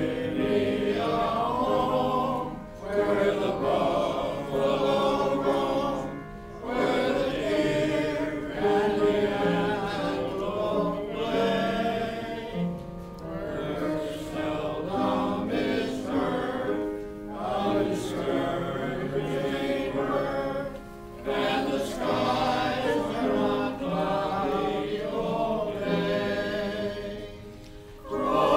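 Community choir of men and women singing, phrase after phrase with short breaks between.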